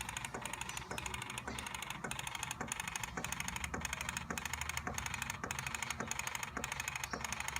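Tamron 70-200mm G2 telephoto lens making a strange mechanical noise: a fast fine ticking that pulses in even cycles about twice a second. The owner cannot tell whether it is normal or a defect.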